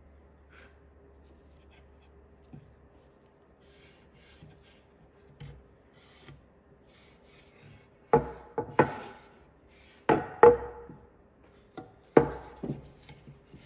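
Rag rubbing along a wooden riser board as stain is wiped on: faint handling ticks at first, then three pairs of sharp rubbing strokes against the wood in the second half.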